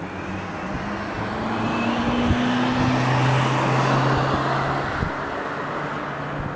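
A car passing by: engine and tyre noise swelling to a peak about three to four seconds in, then fading away.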